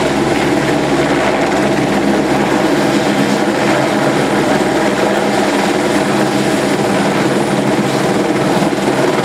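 Helicopter main rotor and engine running steadily and loudly as the helicopter hovers low over the pad and settles onto its skids.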